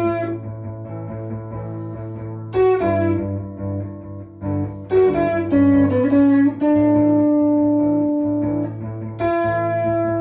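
Ibanez Gio electric guitar playing lead phrases over a looped guitar backing: picked notes, a short bend, and one long held note in the middle.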